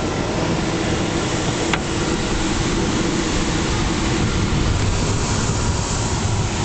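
Steady rush of airflow over the canopy of a Schleicher ASK 13 glider, which has no engine, during a low pass over the runway. A single short click comes about two seconds in.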